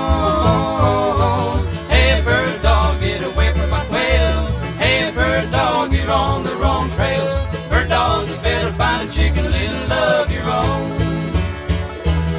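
Bluegrass band recording: a held sung note trails off in the first second, then an instrumental break of banjo, guitar, mandolin, fiddle and bass, with banjo to the fore over a steady bass beat.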